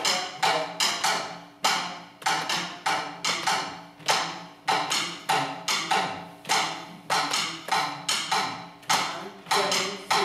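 Drum kit struck with sticks in a repeating, unevenly spaced pattern of sharp hits, about two to three a second, each with a short ring: a 3-against-4 polyrhythm exercise.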